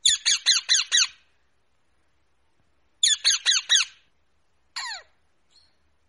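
Alexandrine parakeet squawking: two quick runs of about five harsh calls each, some three seconds apart, then a single shorter call falling in pitch.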